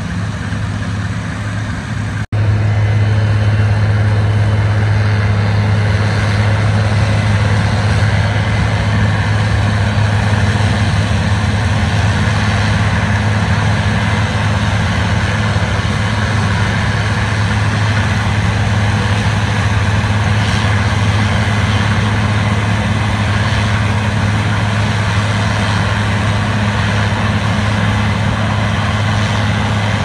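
Diesel engine of corn-harvest machinery running steadily, with a strong low hum. A brief break about two seconds in, after which it is louder.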